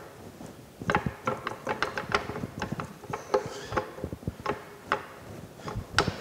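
Engagement handle on a Lucas horizontal boring mill's saddle being worked back and forth, giving a string of irregular metal clicks and clunks that starts about a second in, as the drive engages and disengages.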